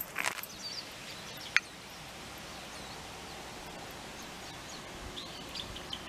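Steady outdoor background noise with a few faint bird chirps, mostly near the end, and one sharp click about a second and a half in.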